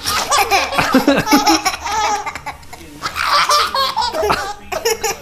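A baby laughing in short, choppy bursts, in two bouts with a brief lull between them.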